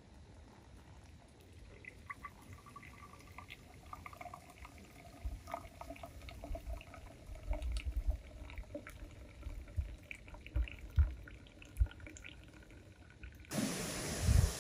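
Liquid pouring or trickling, with scattered small clicks and low knocks. Near the end it cuts suddenly to a steady hiss.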